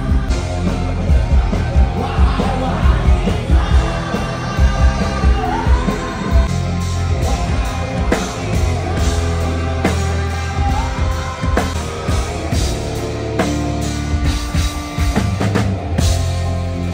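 Rock band playing live with a singer's voice over heavy drums and bass guitar.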